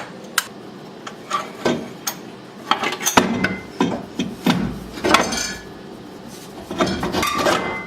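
Irregular metal clanks, knocks and scraping as a steel exhaust downpipe is worked loose and pulled out from under a BMW N54, metal knocking against metal.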